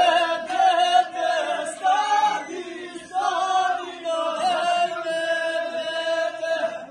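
Voices singing a chant-like folk song, holding long notes and sliding up into each phrase, with a short break about three seconds in.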